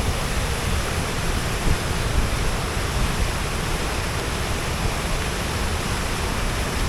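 Steady rush of a large waterfall running high with spring snowmelt: a dense, even wash of water noise without breaks.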